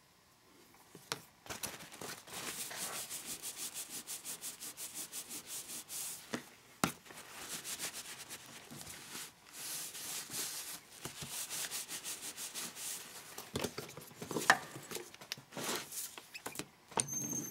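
Hands rubbing a paper towel quickly back and forth over a freshly glued paper cover, smoothing it down onto the glue. Near the end the rubbing gives way to a few sharper clicks and knocks of handling.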